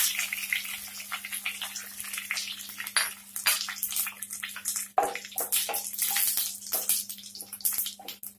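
Whole spices (bay leaves, dried red chillies, cumin seeds, cinnamon, cardamom and cloves) sizzling and crackling in hot mustard oil, the tempering for a Bengali chicken curry. Irregular popping runs over a steady hiss and grows busier in the second half, as a wooden spatula stirs the spices in the pan.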